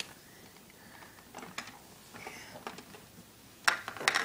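Plastic baby walker toy being handled, with a few light knocks and then a quick cluster of loud, sharp plastic clacks near the end.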